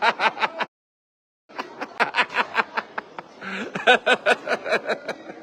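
People's voices in quick pulses of laughter and chatter. The sound cuts out completely for under a second near the start, a drop-out in the stream's audio.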